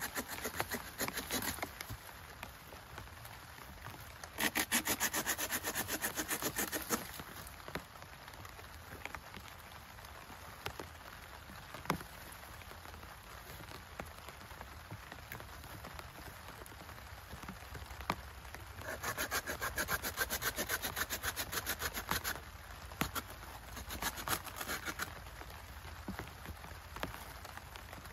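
Rapid rasping strokes on wood, worked by hand in bouts of a few seconds: about four seconds in and again near the two-thirds mark. Steady rain patters underneath.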